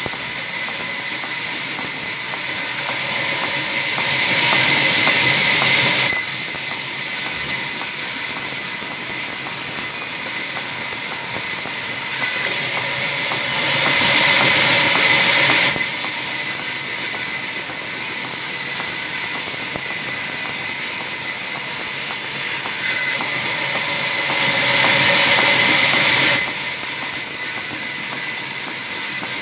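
Large sawmill band saw running and cutting through a log with a steady hissing whine, growing louder and harsher three times for about three seconds each.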